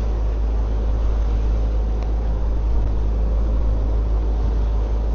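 Charter fishing boat's engine running steadily, a low, even drone under a constant hiss.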